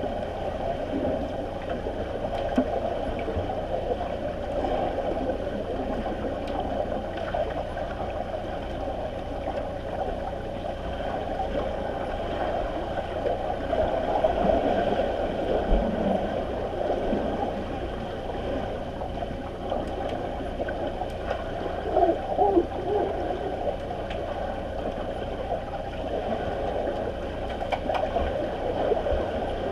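Muffled underwater pool sound: a steady gurgling wash of water stirred by many swimmers overhead, with a few louder surges about two-thirds of the way through.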